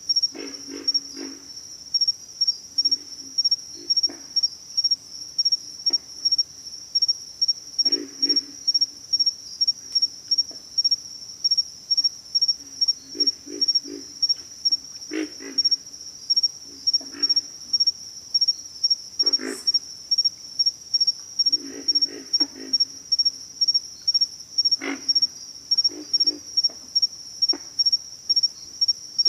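Pig frogs grunting: low, pig-like calls, some single and some in short quick series, at irregular times. A steady high-pitched insect trill runs underneath.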